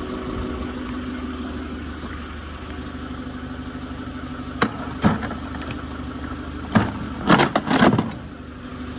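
Forklift engine idling steadily, with several sharp clanks about halfway through and a quick cluster of them near the end.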